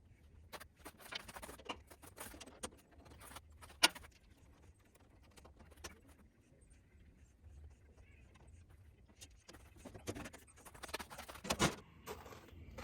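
Faint rustling and scattered light clicks of small objects being handled, with one sharp click about four seconds in and a heavier knock near the end.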